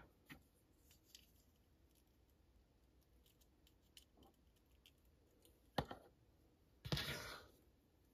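Small plastic toy pieces handled and set down on a desk: faint scattered clicks and taps, a sharper click about six seconds in, and a short rustling scrape about seven seconds in.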